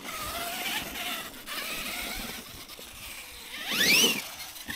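Losi LMT Grave Digger 1/10 RC monster truck's electric motor and drivetrain giving a high-pitched whine that wavers with the throttle. About three and a half seconds in, the whine rises sharply and falls back as the motor revs up and down.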